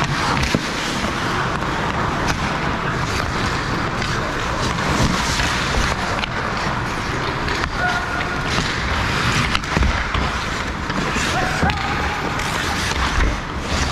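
Ice hockey play close to the goal: skate blades scraping and carving the ice, with several sharp clacks of sticks and puck and players calling out.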